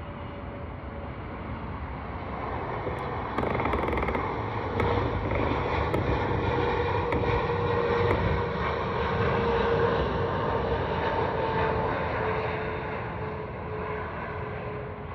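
Airliner passing low overhead: a broad engine rush that builds to its loudest about two-thirds of the way through, with a whining tone that slowly falls in pitch as the aircraft goes past, then eases away.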